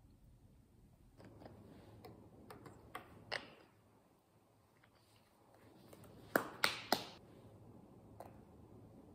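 Small plastic cosmetic tube and its cap being handled and opened: scattered light clicks and taps, then three sharp clicks in quick succession a little past the middle.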